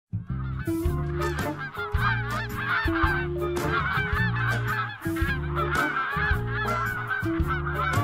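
A flock of birds calling, many short honking calls overlapping, over the instrumental intro of a song with steady low notes that change about once a second.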